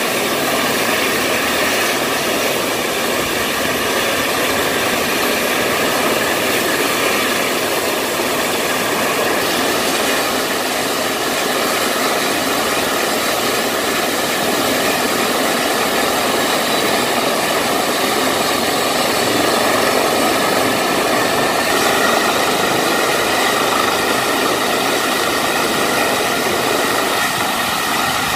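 Turbine helicopter running on a yacht's helideck with its rotor turning: a steady high turbine whine over the rotor and engine noise, edging slightly higher in pitch about two-thirds of the way through.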